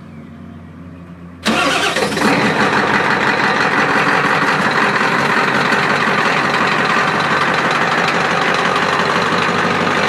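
Dump truck engine starts about a second and a half in and settles into a steady idle.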